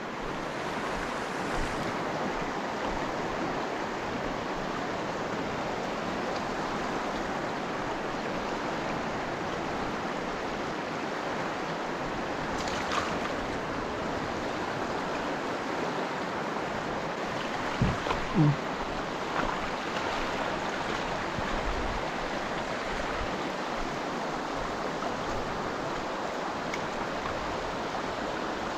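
Steady rushing of flowing river water, with a brief knock and a short low sound about two-thirds of the way through.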